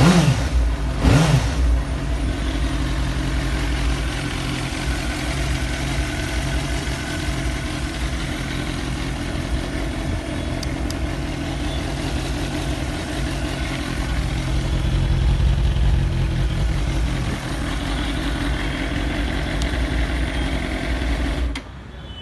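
Suzuki GSR600's stock inline-four engine revved in two quick throttle blips, then idling steadily. The engine sound cuts off suddenly near the end.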